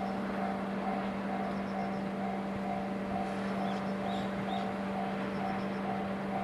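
Japanese railway level-crossing alarm ringing, its electronic bell tone repeating a little over twice a second over a steady low hum.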